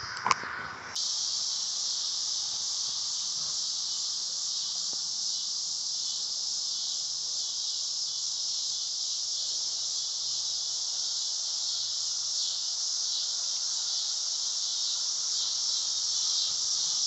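Insects buzzing in a steady, dense high-pitched drone that starts abruptly about a second in, after a sharp click.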